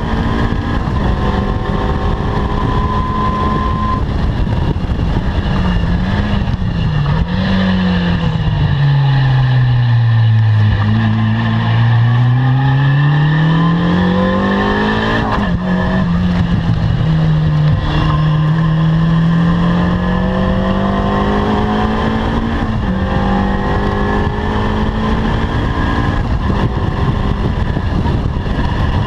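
Caterham Seven R300's four-cylinder engine running hard on track: the pitch steps down twice, falls lowest about a third of the way through, climbs back up with a sharp crack around the midpoint, holds a little lower, then rises again near the end.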